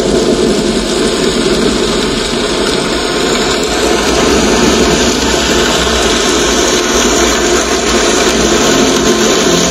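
JBL Bar 2.1 (2020 Edition) soundbar with its wireless subwoofer playing loud demo audio: a dense, steady, rumbling noise with no clear tune or voice.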